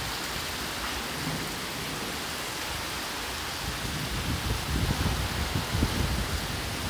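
Heavy rain pouring down steadily, with irregular low rumbles of wind gusting against the microphone from about halfway through.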